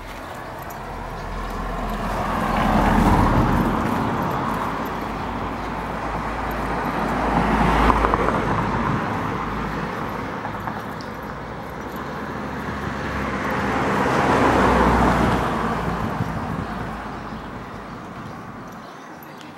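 Three cars pass by on the street one after another, each rising and then fading away as its tyre and engine noise sweeps past. The loudest moments come a few seconds in, near the middle, and about three-quarters of the way through.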